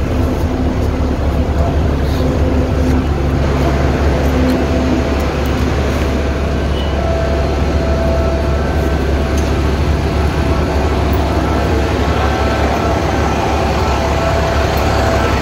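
Bus engine and road noise heard from inside the moving bus: a steady low rumble with a faint held whine.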